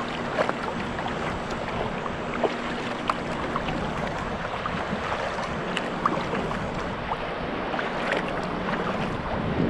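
Water splashing and lapping around a sea kayak as it is paddled, in short irregular splashes over an even wash of water noise, with wind on the microphone.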